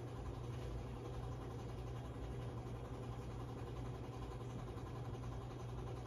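52-inch Hunter Caicos ceiling fan running, a steady low motor hum with the air noise of its five spinning blades. The fan has a bad capacitor, which leaves it turning slower than it should.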